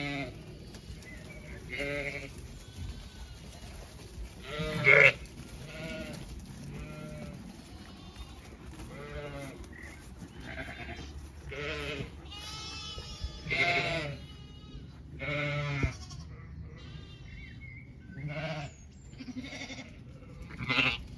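Zwartbles ewes and lambs bleating, about a dozen separate wavering calls, the loudest about five seconds in.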